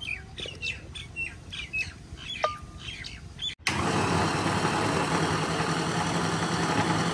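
Small birds chirping for the first half. Then, after an abrupt cut, an electric blender runs with a steady motor hum, grinding the cooked onion, tomato and cashew masala into a paste.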